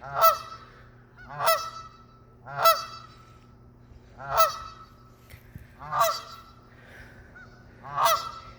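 Canada goose honking repeatedly, six loud honks spaced a second or two apart, calling to its separated mate.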